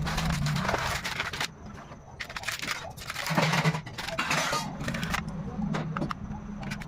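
Packaging being handled while unboxing a remote-control helicopter: irregular rustling and crinkling with sharp clicks and taps, over a steady low hum.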